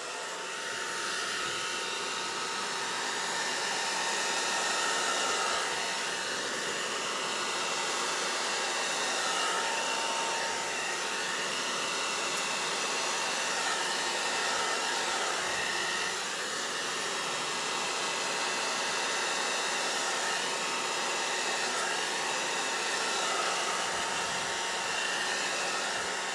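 Hair dryer running steadily, blowing wet fluid acrylic paint out across a canvas to spread it into a bloom.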